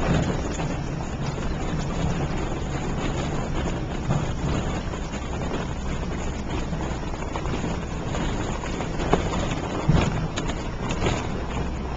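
Vehicle driving on a rough dirt road: steady engine and tyre rumble with a few jolts and knocks, and wind buffeting the microphone.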